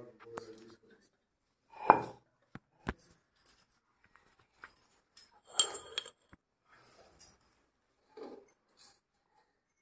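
Handling noise from a phone being filmed with: fingers rubbing and knocking against the phone near its microphone, with a loud bump about two seconds in, a sharp click a second later and a scratchy cluster past the middle.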